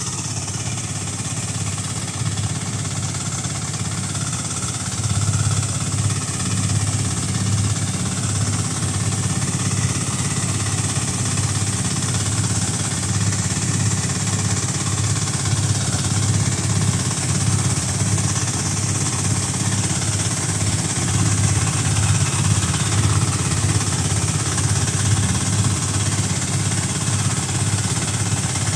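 Tracked orchard air-blast sprayer at work: its 192-type single-cylinder diesel engine running steadily, with the steady rush of air from the 600 mm fan blowing out spray mist. The engine gets a little louder about five seconds in.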